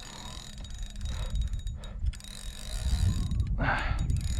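Spinning fishing reel clicking and ratcheting while a hooked redfish is fought on the line, with a short rush of noise about three and a half seconds in.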